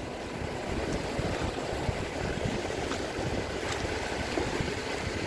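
Steady wash of sea surf, with wind on the microphone.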